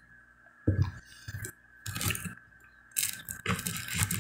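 A few soft handling knocks, then, from about three seconds in, the dry crackle of a toasted bread roll's crust being torn apart by hand.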